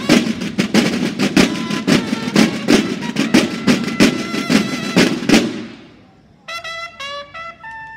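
Banda de guerra (Mexican drum and bugle band): snare drums beat a steady march rhythm under the bugles, stopping about five and a half seconds in. After a short pause the bugles play a few short notes and then hold a long one.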